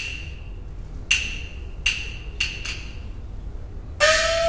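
Peking opera percussion: five sharp, ringing wooden strikes of the clapper and drum, coming closer together. Near the end a sustained pitched note from the accompanying band comes in.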